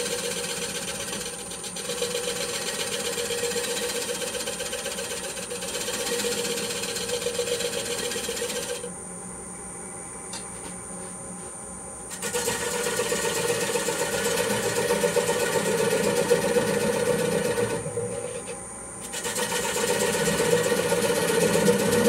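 Wood lathe running while a gouge cuts the foot of a wooden bowl, a rough scraping cutting noise over the steady hum and high whine of the lathe. The cutting stops for about three seconds near the middle and again briefly about three-quarters through, leaving only the lathe running.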